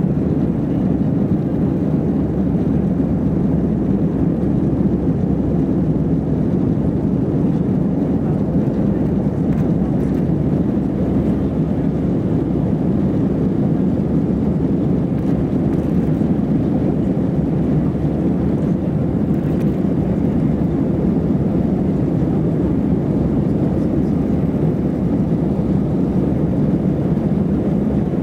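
Cabin noise inside an Airbus A319 climbing after take-off: a steady, even roar of the jet engines and rushing air.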